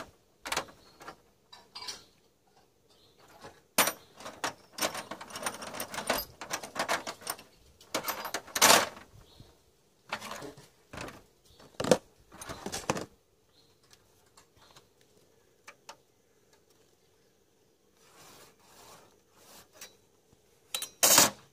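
Steel hex-key rods clinking and rattling against each other and a metal-topped workbench as they are handled and sorted, in irregular bursts of sharp metallic clicks. There is a quieter stretch after the middle and a short, louder clatter near the end.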